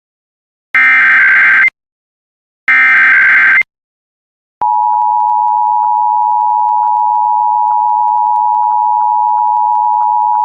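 Emergency Alert System tones: the second and third digital SAME header bursts, each a harsh data screech just under a second long with a second's gap between them, then the steady two-tone EAS attention signal starting about four and a half seconds in and holding.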